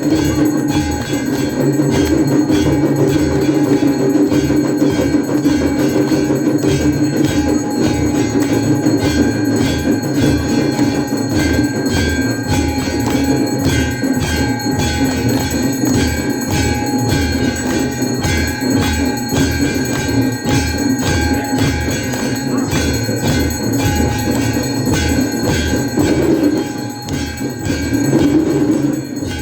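Temple aarti bells ringing continuously, several steady metallic tones sounding together over an even low beat of about two strokes a second.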